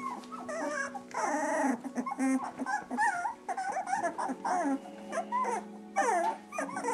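Several young husky puppies whining and squeaking at once, a stream of short, wavering, high-pitched cries.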